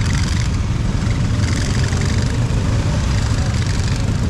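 Motor vehicle engines running with a steady low rumble and a hiss over it.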